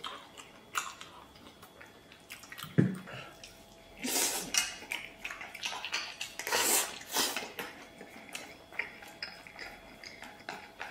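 Close-up eating sounds: chewing and slurping of pork and food pushed from a steel bowl into the mouth with chopsticks, with scattered clicks of the chopsticks against the bowl and one thump about three seconds in.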